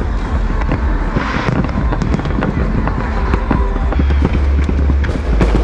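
Fireworks display: rapid crackling and popping over a continuous low rumble of booms, the rumble heaviest from about four to five and a half seconds in.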